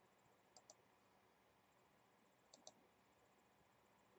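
Near silence broken by faint computer mouse clicks: a quick double-click about half a second in and another about two and a half seconds in.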